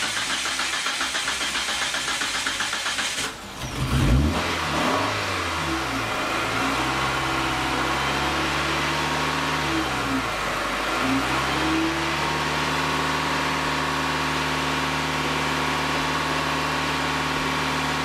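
2004 Mitsubishi Lancer 2.0L four-cylinder engine cranking on the starter for about three seconds, then catching and revving. Its speed rises and falls for several seconds before it settles into a steady idle about twelve seconds in.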